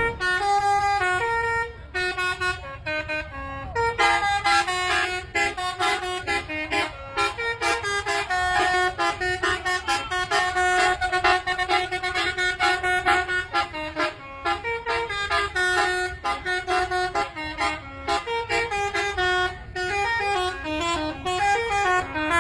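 Bus telolet horn playing a quick melody on its multi-tone horn, stepping from note to note in repeated phrases with short breaks.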